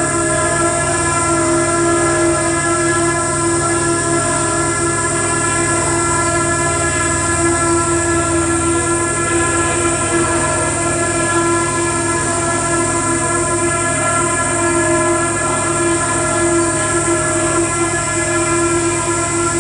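Loud, sustained electronic noise drone from a live experimental electronics set: a dense chord of many steady held tones over hiss. It barely changes, with the lowest layer thinning a little about halfway through.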